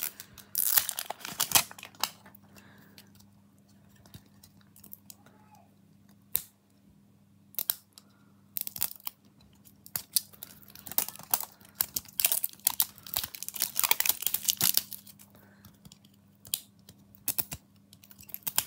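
Plastic wrapping being torn and crinkled off a toy capsule, in irregular crackly bursts with pauses between them.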